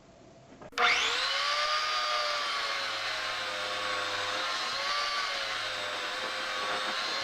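An electric power tool's motor starts with a rising whine about a second in, then runs at a steady high pitch.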